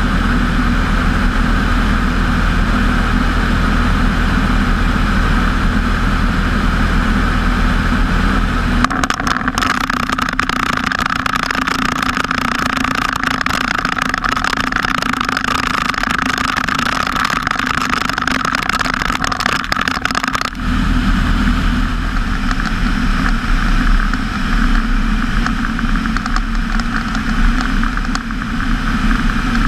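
Storch HS ultralight's engine and propeller droning steadily in flight, mixed with wind rushing over the wing-mounted microphone. About a third of the way in the low drone drops away and a crackling wind rush takes over for about ten seconds, then the engine drone returns.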